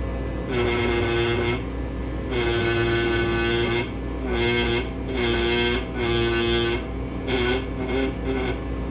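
Pneumatic air scribe buzzing in short bursts of a second or so as it chips shale matrix away from a fossil, holding the same pitch each time, the last few bursts shorter and wavering. A steady low hum runs underneath.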